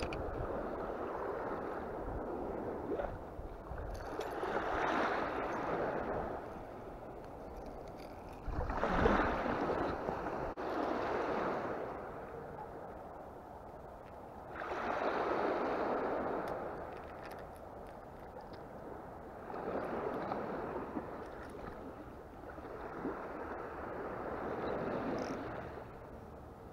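Small waves washing in on a shelly beach, the surf hiss swelling and fading every four to six seconds.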